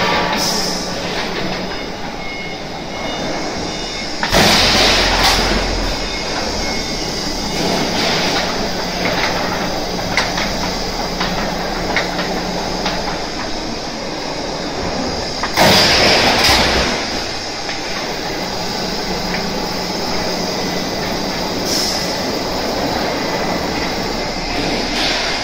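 Corrugated roofing sheet roll forming machine running, a steel sheet passing through its forming rollers: steady machine noise with a low hum. It grows louder for about a second twice, about four seconds in and again near sixteen seconds.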